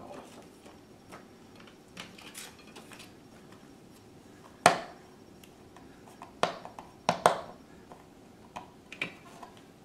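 A few sharp clicks and knocks, about five spread over the latter half, with light rustling earlier: hands handling the cables and plastic junction boxes on the back of a folding solar panel.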